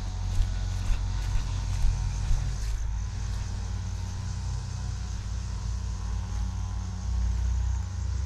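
Footsteps on grass, about two a second, stop about two and a half seconds in. Under them runs a steady low rumble with a faint steady hum.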